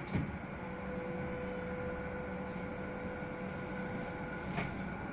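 Inside a moving electric tram: a steady running hum and rumble with a held tone, and a sharp knock just after the start and another near the end.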